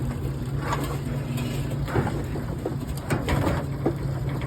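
A motor running steadily with a low hum, with scattered knocks and clatter on top.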